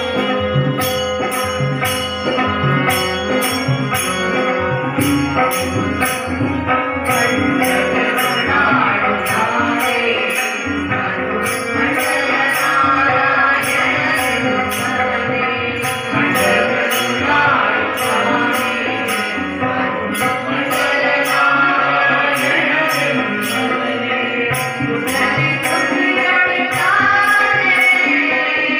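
Devotional bhajan: a group singing into microphones, accompanied by an electronic keyboard holding sustained notes and a regular jingling beat.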